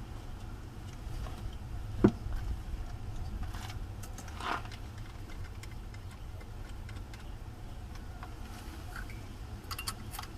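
Light clicks and metallic taps of tools and hardware being handled, with one sharp knock about two seconds in, over a steady low rumble.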